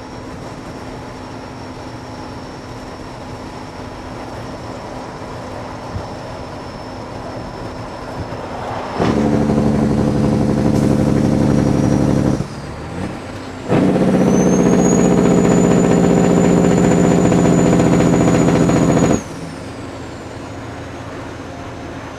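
Kenworth W900 diesel truck with loud pipes, first running at a low steady hum, then about nine seconds in the exhaust note jumps loud for a few seconds. After a brief drop like a gear change it comes back loud again with a high turbo whistle, and cuts off suddenly near the end.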